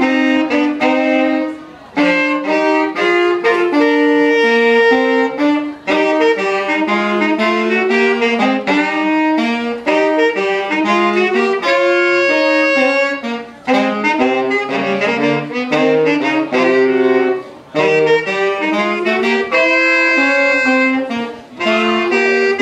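Two saxophones playing a jazz tune together as a duet, moving from note to note in phrases with brief breaks for breath every few seconds.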